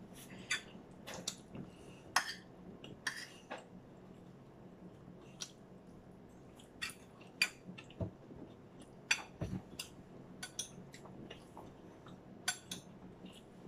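Eating sounds: scattered light clicks and taps of a spoon and fork against plates, with faint chewing.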